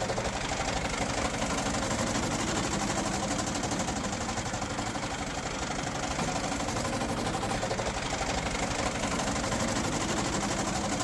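Tractor engine idling steadily with a rapid rattling vibration. The timing gear cover has come loose at the top, where the water pump body bolts on, and it shakes and rattles.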